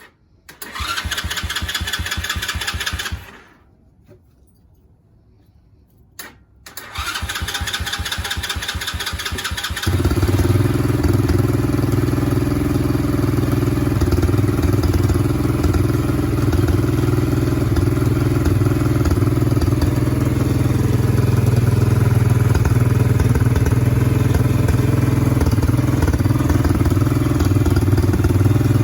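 110cc ATV's single-cylinder four-stroke engine being cranked on its electric starter: a first try of about three seconds that does not catch, a pause, then a second crank that catches about ten seconds in. It then idles steadily.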